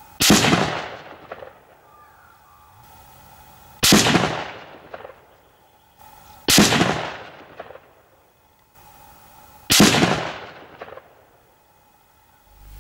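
Four shots from a Lithgow LA102 bolt-action rifle in .243 Winchester, about three seconds apart. Each is a sharp report with an echo that dies away over about a second.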